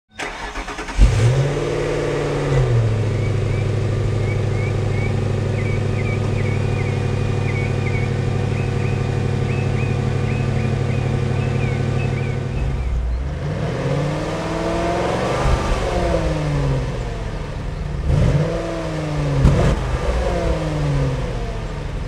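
The 2002 Ford Thunderbird's Jaguar-derived V8 starting about a second in, flaring briefly, then settling into a steady idle. Later it is revved twice, the pitch rising and falling each time.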